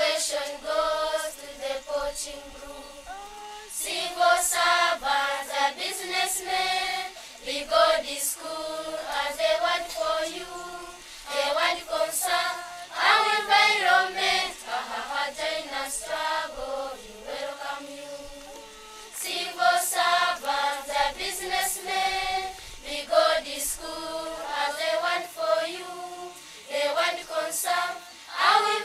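A choir of primary-school children singing a song together, in loud phrases with softer passages between them.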